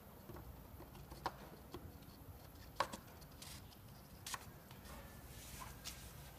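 A few short, sharp plastic clicks as the oil filler cap is put back on the engine's filler neck, the loudest about three seconds in, over a faint steady background.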